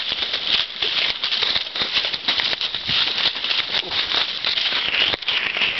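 Horses' hooves walking through dry corn stubble, the stalks crunching and rustling in a dense, steady crackle.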